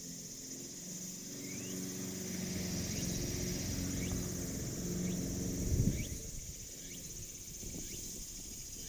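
Insects trilling steadily outdoors, with a low hum that builds, peaks about six seconds in, and then fades.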